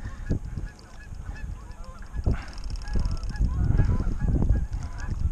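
A flock of geese honking repeatedly, many short calls overlapping throughout.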